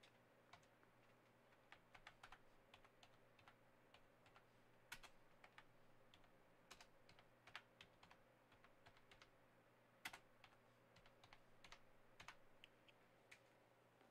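Faint typing on a computer keyboard: irregular key clicks, a few at a time with short pauses between.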